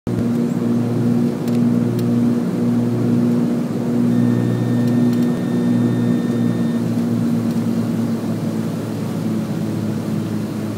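A small airplane's engine drones steadily on final approach, heard from inside the cockpit, and gets a little quieter after about eight seconds. A faint high steady tone sounds from about four seconds in, for a couple of seconds.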